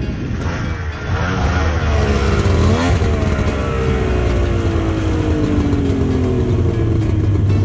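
Ski-Doo Formula III snowmobile's two-stroke engine revving up and down as the sled rides in, then the engine note dropping about three seconds in and falling away slowly as the throttle comes off and it coasts to a stop.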